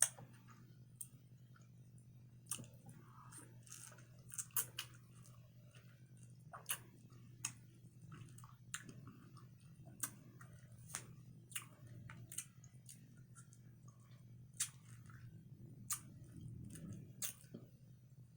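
Close-miked chewing and mouth sounds of someone eating a stuffed pineapple boat of coconut rice, eggs, cheese and bacon: many short sharp clicks and smacks over a faint steady hum.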